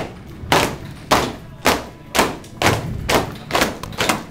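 Stepping: stomps and claps striking a steady beat about twice a second, each hit echoing briefly, with a quick double hit about three seconds in.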